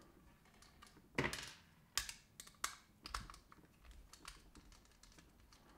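Small screwdriver backing screws out of the metal body of a car tailgate lock: faint, irregular clicks and ticks of the bit turning in the screw heads and of small parts being handled.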